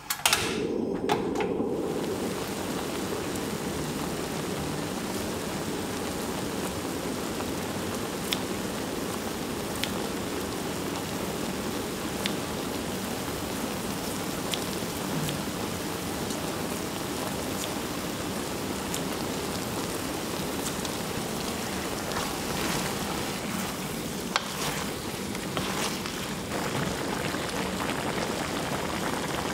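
Food cooking over a freshly lit burner: a steady sizzling hiss with scattered sharp pops.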